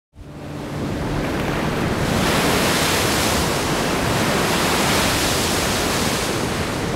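Ocean surf breaking on rocks, with wind, making a dense, steady roar. It fades in over the first two seconds and then holds level.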